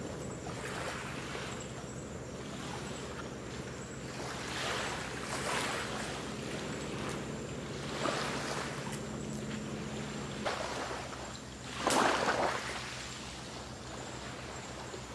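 Small sea waves washing against a shore, the rush of water swelling and easing every second or so, with one brief louder wash about twelve seconds in.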